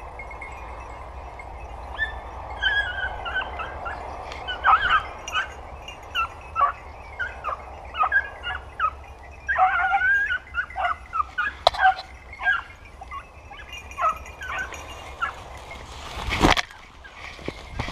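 Young hunting-dog puppies yelping and baying in a rapid, irregular string of short high-pitched yaps, in the way hounds give tongue while working a scent. A single sharp thump comes near the end.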